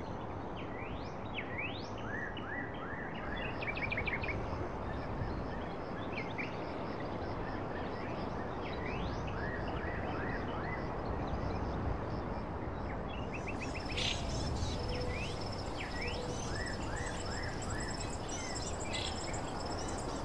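Outdoor ambience: small birds chirping in many short rising calls and quick repeated notes over a steady background hum. About two-thirds of the way through, thin high steady notes join in.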